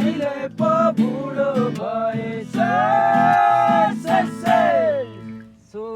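A man singing a Nepali folk song over guitar accompaniment, holding one long note near the middle.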